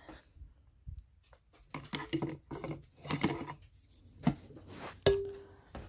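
Slow cooker being handled: a few soft knocks and scrapes of its lid and a spoon against the pot, then a sharp clink about five seconds in that rings briefly.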